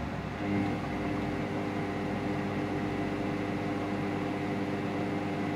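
Spa pump's electric motor running steadily on its repaired shaft, spinning the impeller: a steady hum that comes up to full about half a second in.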